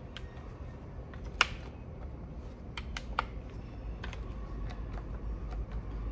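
Scattered sharp clicks and taps, about ten, the loudest about a second and a half in, from a DeWalt cordless framing nailer being worked by hand. The nailer stays dead: no motor or drive sound, with no lights coming on.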